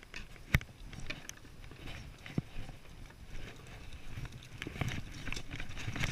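Scattered light knocks and taps on a wooden fishing pier, with one sharp knock about half a second in, as a freshly caught herring is unhooked and dropped into a plastic bucket, followed by footsteps on the deck boards near the end.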